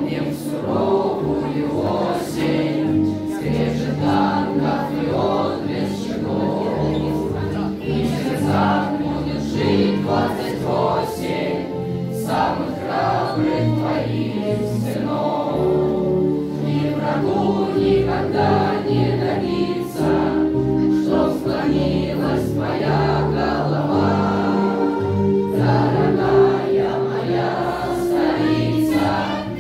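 A choir of schoolchildren and cadets singing a song together over musical accompaniment with a steady beat.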